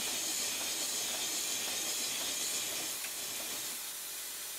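Steady hiss of compressed air from a 5-inch gauge Stirling single model steam locomotive running on air, much of it leaking around makeshift tubing made from old wire insulation. The hiss eases slightly about three seconds in.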